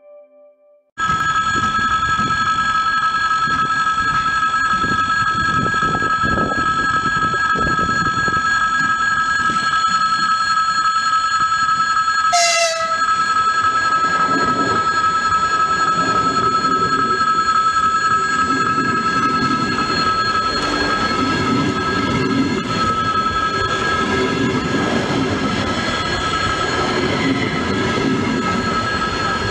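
ES2G "Lastochka" electric train passing close, its electrical equipment giving a steady whine of several high tones over the rumble of its wheels on the rails. The sound starts abruptly about a second in, a brief sharp sweep cuts through about twelve seconds in, and the tones sink slightly near the end.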